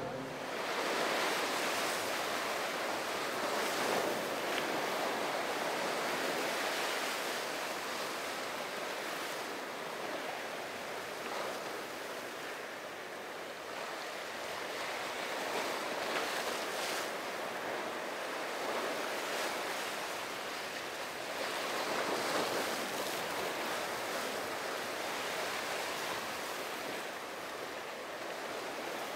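Ocean waves surging and breaking, with wind on the microphone; the wash rises and falls in swells.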